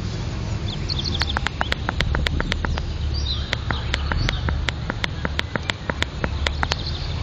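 Sharp ticking at an irregular rate of several clicks a second, over a steady low rumble, with a couple of brief high bird chirps, one about a second in and another about three seconds in.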